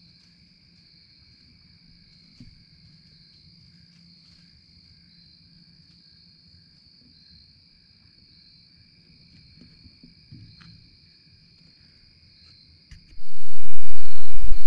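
Faint woods with a steady high-pitched drone and a few small knocks. About thirteen seconds in comes a sudden loud rumbling rub as the camera and its microphone are handled.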